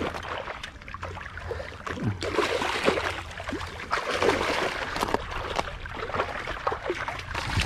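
Water splashing and sloshing irregularly in the rocky shallows as a hooked Australian salmon is brought in to the water's edge.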